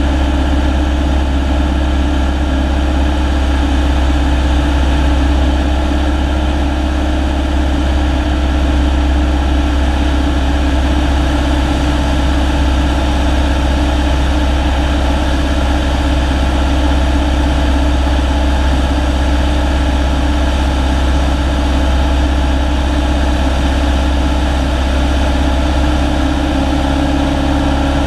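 Single-engine Cessna's piston engine and propeller running steadily in flight, a deep, even drone.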